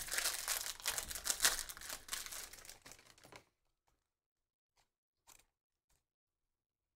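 Foil wrapper of a baseball card pack being torn open and crinkled for about three and a half seconds, then near silence with a few faint ticks.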